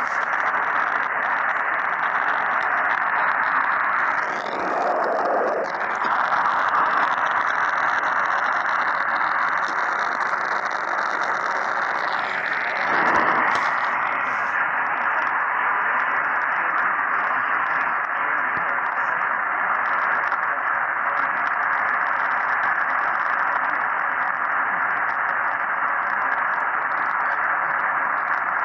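Radio static: a steady hiss of receiver noise on an open channel with no programme audio, swelling briefly about four seconds in and again about thirteen seconds in.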